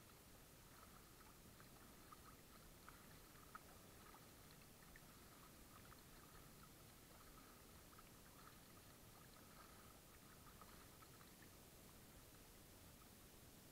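Faint water lapping and crackling against a kayak's bow as it moves over choppy water, with a few small ticks and splashes, very low in level and close to near silence.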